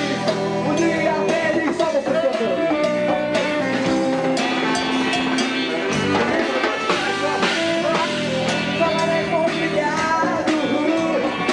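Live band music with saxophone, hand drums and a singing voice, played continuously at a steady loudness.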